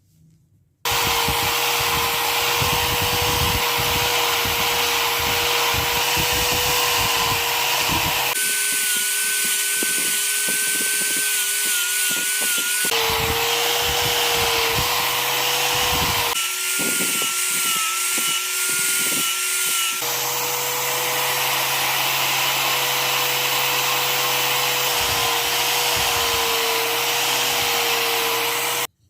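Electric grinder fitted with a homemade velcro 400-grit sanding disc, sanding a wooden knife handle and sheath: a loud, steady motor whine with sanding noise. The whine jumps to a higher pitch twice for a few seconds, and the sound cuts off suddenly near the end.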